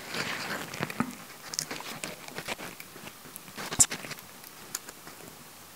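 Small clicks, taps and light scraping of fingers handling circuit boards on a cutting mat and pushing flat flex cables into their ZIF connectors, with one sharper click a little under four seconds in.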